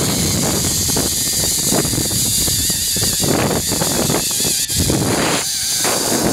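Zipline trolley running fast along its steel cable, with wind rushing over the microphone: a loud, steady hiss and whir with a wavering high whine.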